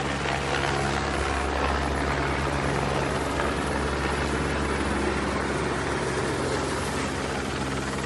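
Engine drone, steady and continuous, with a low hum.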